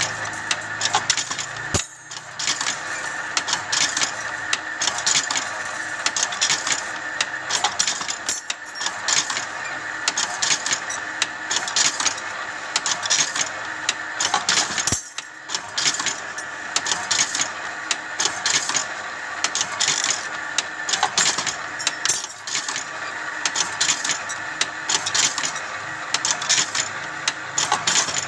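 Automatic rebar stirrup-bending machine running, driven by a 1.5 hp single-phase electric motor: a steady mechanical running noise with rapid, irregular metal clattering and clicking as it bends wire into stirrups. The noise drops briefly about two seconds in and again about halfway through.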